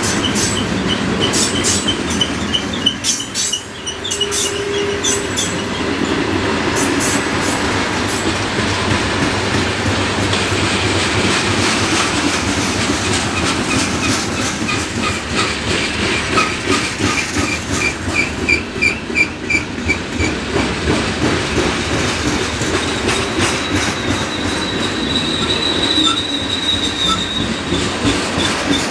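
Freight train cars rolling past, their steel wheels squealing against the rails in high, wavering tones over a steady rumble, with a repeating clickety-clack of wheels over rail joints, strongest in the middle of the stretch.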